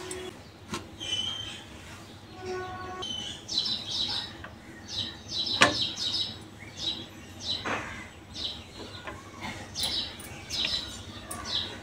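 Small birds chirping over and over in short high calls, with a few sharp clinks of steel bowls being set down on a wire stand in a metal kadai, the loudest about halfway through.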